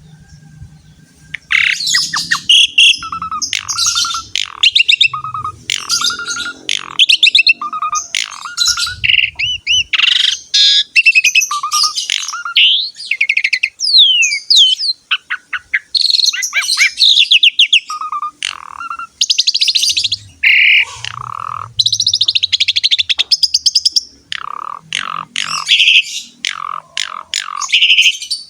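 Asian pied starling (jalak suren) singing a long, varied song of rapid chattering trills and whistles, with a short whistled note repeated again and again between the busier phrases.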